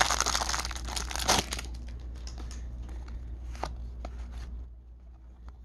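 Foil wrapper of a baseball card pack crinkling and tearing as it is pulled open, dense for the first second and a half. Then softer rustles and flicks follow as the stack of cards is handled and sorted, fading out near the end.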